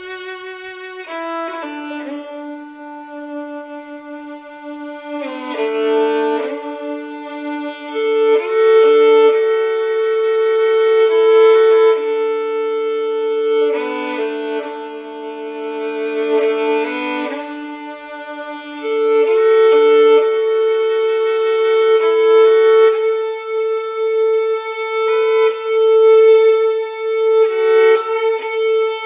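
Background music: a slow, mournful violin melody with long held notes, two of them sustained for many seconds.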